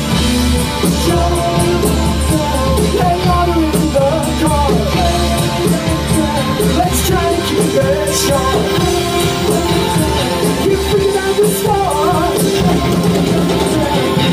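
A live rock band playing loud: electric guitar, bass guitar and a drum kit going together.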